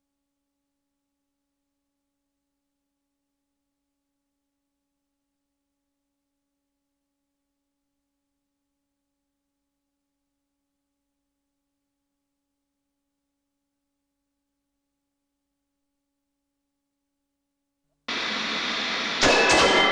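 Near silence with only a very faint steady tone for most of the stretch. About eighteen seconds in, a loud hiss of TV static starts abruptly, and about a second later short bright electronic tones sound over it as the opening jingle begins.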